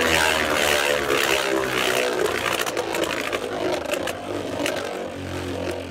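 Two Beyblade Burst spinning tops, Union Achilles and Zwei Longinus, whirring and scraping on the floor of a plastic BeyStadium, with a few sharp clicks as they make contact. The whir falls slowly in pitch and fades as the tops lose speed.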